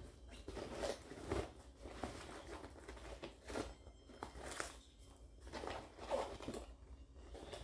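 Rustling and soft knocks of things being moved around inside a fabric school backpack, in short irregular bursts.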